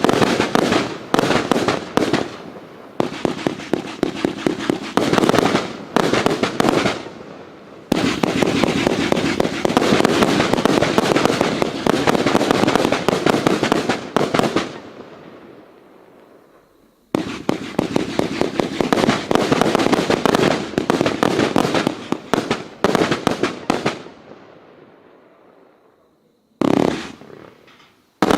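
Riakeo consumer fireworks going off in rapid volleys of sharp bangs and crackles. The volleys come in separate runs that each fade away, and new runs start abruptly about 8, 17 and 27 seconds in.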